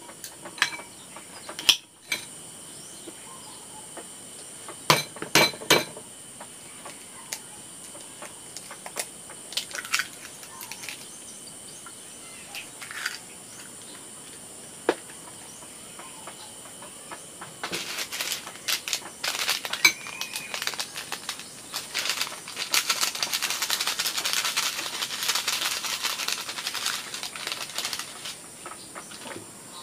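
A few scattered clinks of kitchen utensils, then, about eighteen seconds in, a dense crackling sizzle of food frying in hot oil that lasts about ten seconds.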